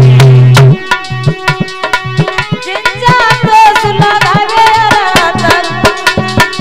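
Instrumental passage of Indian folk devotional music: a dholak and other hand drums play a fast, dense rhythm, with a melody line sliding over it around the middle.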